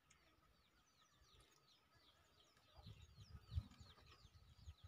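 Faint, quick falling chirps of small birds, several a second, with a few low thumps about three seconds in.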